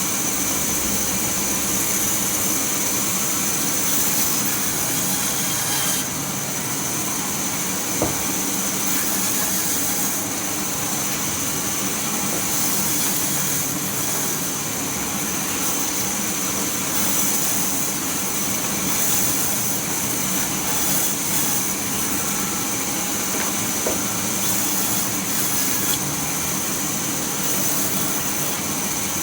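Sawmill machinery running steadily: a continuous motor hum under a hiss, with a single sharp knock about eight seconds in.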